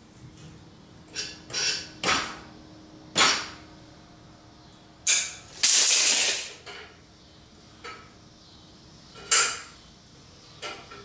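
Steel clanking and scraping as a length of metal strap is handled against an old Model T frame rail: a string of separate clanks and knocks, with one longer scrape lasting about a second near the middle.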